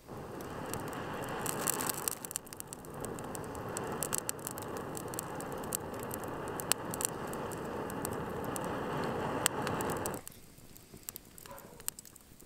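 Air blown through a metal blow poker into the campfire's coals: a steady rushing hiss, with the burning wood crackling and popping sharply over it. The rush stops suddenly about ten seconds in, leaving fainter crackling.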